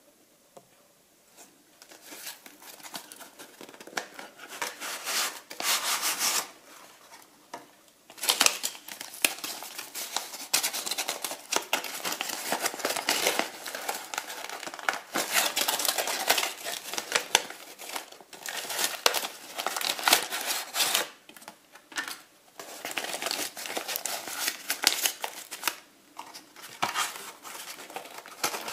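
Sheets of photographic paper and dark wrapping paper being handled, rustling and crinkling in irregular bursts with a few short pauses.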